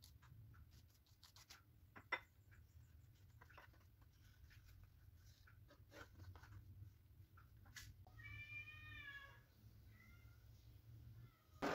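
Near silence with faint scattered clicks and taps and one sharp click about two seconds in. About eight seconds in, a cat meows once, a drawn-out, slightly wavering call of about a second and a half, followed by a fainter short call.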